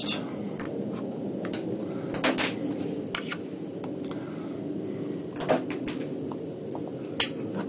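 Scattered light clicks and taps of a Ruger GP100 revolver and its rubber grip being handled as the grip is worked back onto the frame, over a steady low hum.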